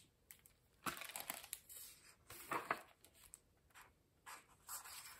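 Hardcover picture book being opened and its pages turned: several faint, short rustles and crinkles of the cover and paper.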